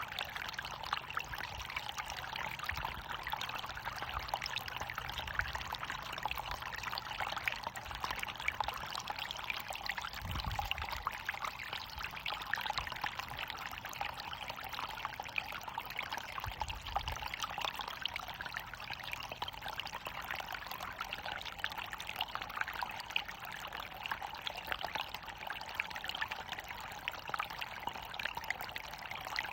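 Small waterfall: water pouring and splashing steadily, an even rushing hiss dense with fine splashes.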